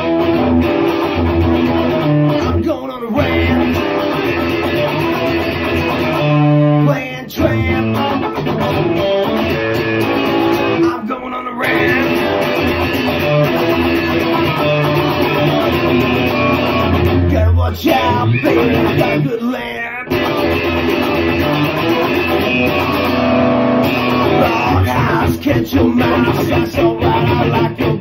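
Background music playing steadily, with a brief dip about seven seconds in.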